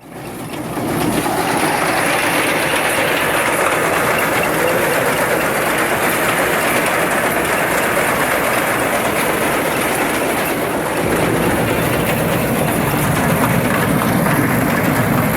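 A machine running steadily with a continuous clattering rattle, fading in during the first second.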